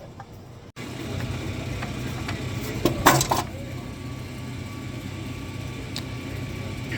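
Steady low hum of a drink vending machine, with a short metallic clatter about three seconds in.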